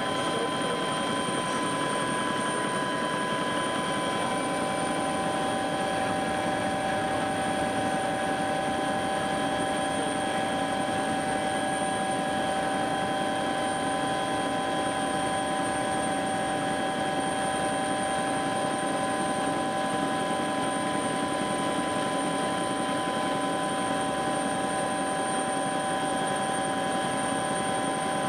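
Helicopter in flight heard from inside the cabin: a steady, unchanging engine and rotor noise with several constant whining tones on top.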